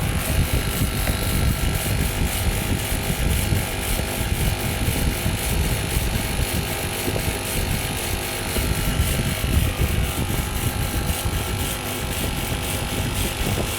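Stone CNC carving machine running, its spindle holding a steady pitch over a rough, continuous chatter as the bit cuts into stone.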